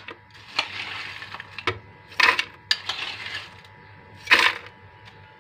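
Crushed ice being tipped from a bowl into a blender jar, rattling against the jar in several short bursts, the loudest about four seconds in.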